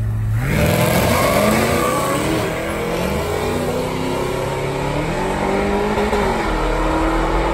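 A race car's engine launches hard and accelerates, its pitch climbing and dropping back at each gear change, then holding steady near the end.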